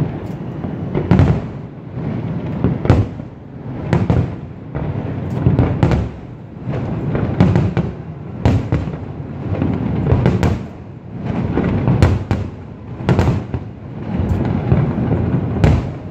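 Fireworks display bursting continuously: a rapid run of shell detonations, about one or two loud bangs a second, each trailing off in a low rumble that overlaps the next.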